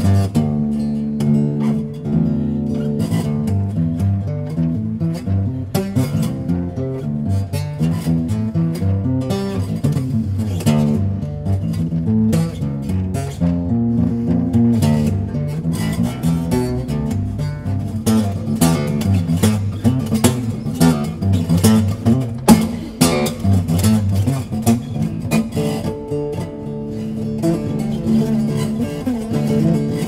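Acoustic tenor bass guitar tuned to a drone, strummed rapidly over steady low ringing notes, echoing inside a concrete drainage tunnel.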